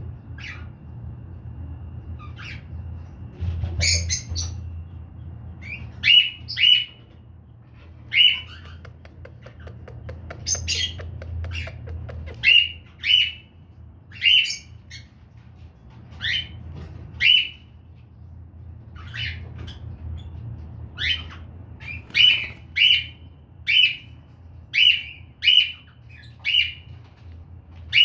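Baby cockatiel calling: short chirping calls repeated about once a second, some in quick pairs, over a steady low hum.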